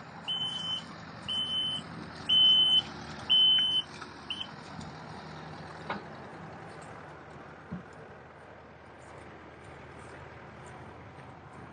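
A heavy machine's backup alarm beeps about once a second, five times, and stops about four and a half seconds in. A steady engine hum runs underneath.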